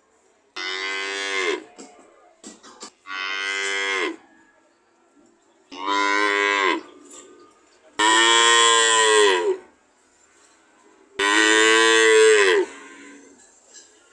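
A cow mooing five times, each moo about a second long and dropping in pitch at the end, with short pauses between them.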